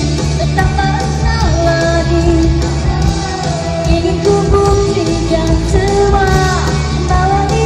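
Female rock vocalist singing long held notes that slide down at the ends, over a live rock band with a steady bass and drum backing.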